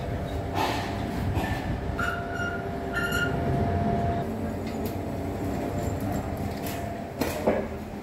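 Passenger elevator car running, a steady rumble and hum. Two short high beeps come about two and three seconds in, and a sharp knock comes near the end as the car arrives and its doors open.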